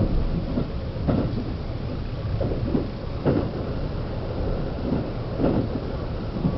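Limited Express Azusa electric train running, heard from inside the passenger car: a steady rumble broken by a clack from the wheels over a rail joint every second or two.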